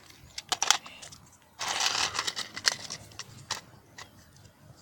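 Plastic clicking and rattling from a toy foam-dart blaster being handled and readied, with a short rushing noise about a second and a half in.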